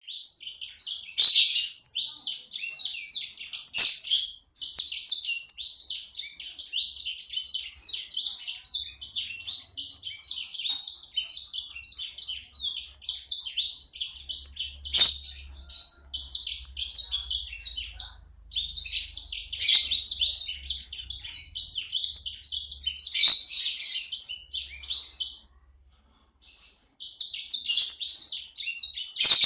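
Pet songbird singing continuously in a long run of rapid, high chirps and twitters, with a few short pauses and a longer break near the end, and a few sharp clicks.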